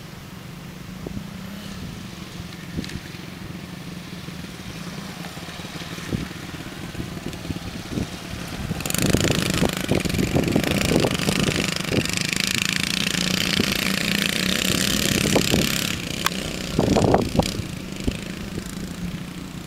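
Small dirt bike engine running as it rides the track, much louder for about seven seconds from about nine seconds in as it passes close by, then dropping away.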